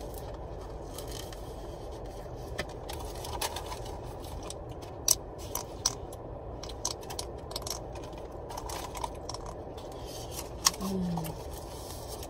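A fast-food drink cup being handled and drunk from without a straw, with scattered sharp clicks and scrapes of the cup and its lid, over a steady low rumble.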